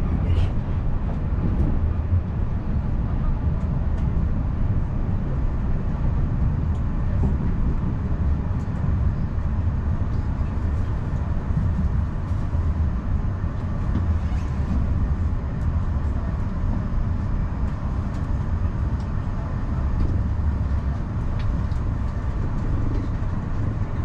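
Passenger train running, heard from inside a coach: a steady low rumble of wheels on the track, with faint clicks now and then.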